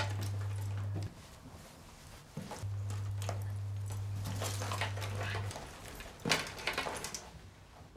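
Rustling and clicking of someone rummaging through a leather handbag, with a few louder clinks about six seconds in. A steady low electrical hum runs underneath, cutting off about a second in and again later.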